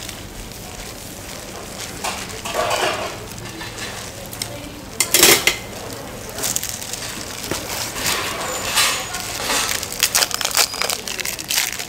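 Food-stall handling sounds: clinks of dishes and utensils and crinkling of packaging in short, irregular bursts, the loudest about five seconds in, with a run of sharp clicks near the end.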